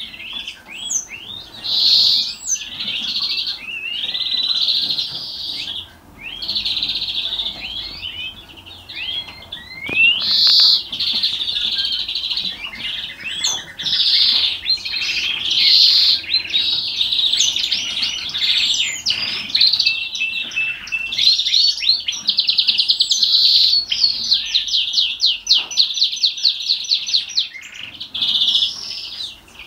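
Caged European greenfinch singing a long, nearly unbroken song of quick twitters and gliding notes, the 'salma' style that finch breeders prize. About two-thirds of the way through it breaks into a very fast trill that slows into a run of separate notes.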